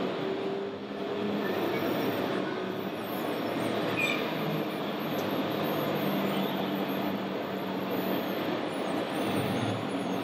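Steady mechanical din of model vehicles running in an exhibition hall, an engine-like hum with faint steady low tones and no single event standing out.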